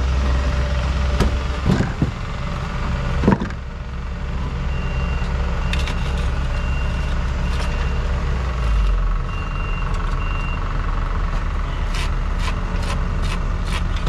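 A vehicle engine running steadily with a deep hum, with a high beeping like a reversing alarm sounding on and off through the middle. A few sharp knocks come early, and a run of clicks comes near the end.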